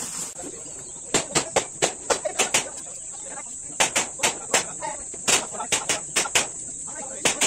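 Rapid pistol fire: strings of several shots a second, starting about a second in, with short pauses between strings. A steady high-pitched insect buzz runs underneath.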